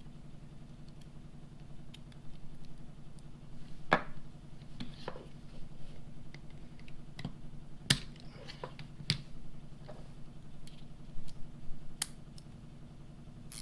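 Scattered sharp clicks and knocks from handling a Wera Tool Check Plus kit: a bit or socket adapter being pulled out of its plastic holder and fitted to the stubby bit ratchet, over a faint steady hum.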